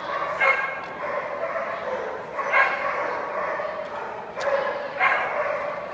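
A dog barking over and over, with the loudest barks about half a second, two and a half and five seconds in.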